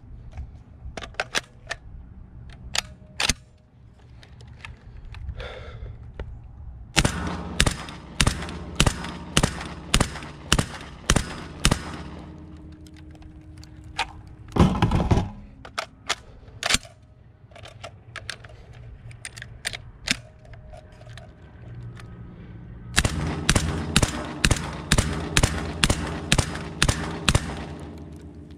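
Black Aces FD12 semi-automatic 12-gauge bullpup shotgun firing suppressed through a SilencerCo Salvo 12, in quick strings of about two shots a second. One string comes about seven seconds in and another near the end, with a louder, longer clatter between them.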